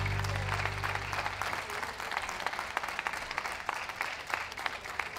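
Ringside audience applauding steadily, the claps dense and overlapping, as the dog is gaited round the show ring; background music fades out in the first second or so.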